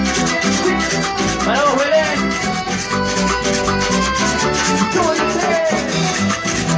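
Live cumbia band playing an instrumental passage: a steady dance beat with bass and a lead melody that glides in pitch.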